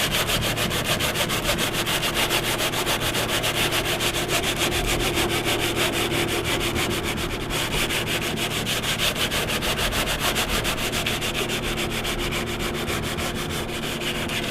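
Hand sanding of a fiberglass canoe hull with coarse sandpaper, in quick, even back-and-forth strokes. The gritty rasp keeps up steadily, roughening the surface so a resin patch will stick.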